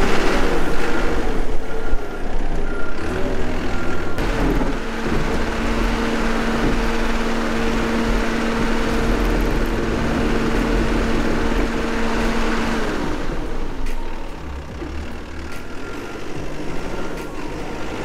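Cat 420F backhoe loader's diesel engine running under load as its front bucket pushes snow. A steady drone holds from about four seconds in until about thirteen seconds, then eases off.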